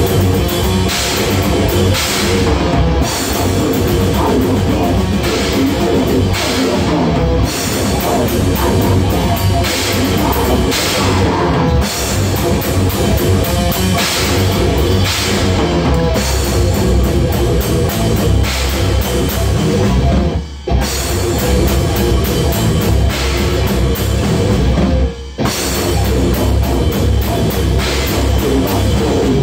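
Heavy metal band playing live: a full drum kit with cymbals and distorted guitar, with two brief breaks about twenty and twenty-five seconds in.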